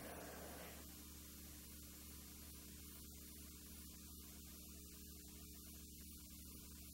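Near silence: a steady low electrical mains hum with faint hiss. The background ambience fades out about a second in, leaving only the hum and hiss.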